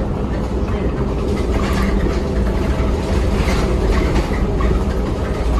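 Cabin noise inside a moving 2009 New Flyer DE60LFR articulated bus, driven by a Cummins ISL diesel with an Allison EP50 parallel hybrid drive: a steady low rumble of engine, drivetrain and road, with short rattles from the body and fittings.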